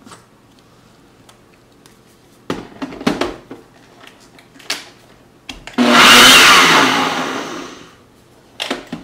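Ninja personal blender puréeing fresh strawberries in one short burst of about two seconds, with a Pro Extraction pulse. The motor starts suddenly and winds down with a falling whine. A couple of knocks come a few seconds earlier as the stainless cup is seated on the motor base.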